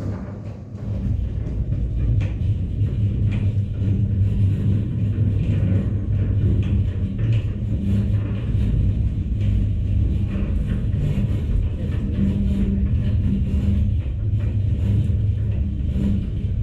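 Automatic sliding-gate opener motor running with a steady low hum. It starts about a second in and winds down at the end.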